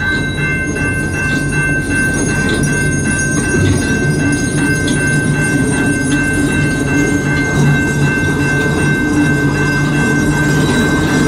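Level-crossing warning bell ringing as a steady high tone over the low rumble of autorack freight cars rolling slowly past on a CN freight train that is slowing to a stop.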